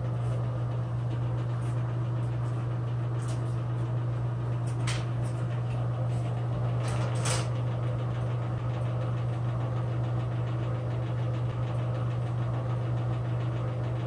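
Broan-Nutone ceiling bathroom exhaust fan running with a steady low hum, the noise that calls for a repair; its motor shaft has a lot of up-and-down play. A few light clicks come through over it.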